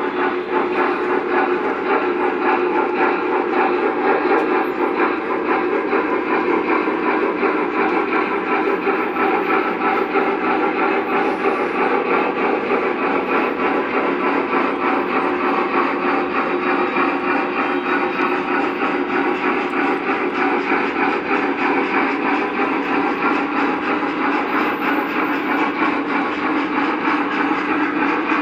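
Lionel O-gauge model trains running on the layout track: a steady rolling rumble of wheels and motors that keeps on without a break.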